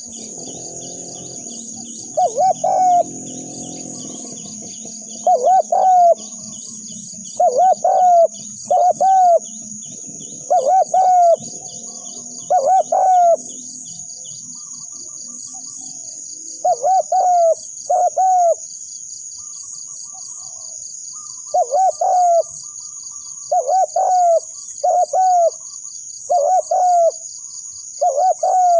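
Spotted dove cooing: loud phrases of two or three hollow coos, repeated every one to two seconds with a short pause about two-thirds of the way through.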